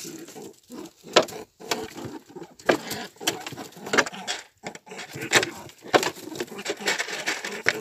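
Footsteps in rubber boots on thin snow strewn with straw: a run of short scuffing steps at uneven intervals, roughly one or two a second.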